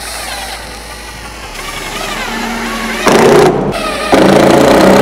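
Cordless drill driving screws through thin plywood into the board beneath. The motor runs briefly about three seconds in, stops, and runs again near the end. Background music plays underneath.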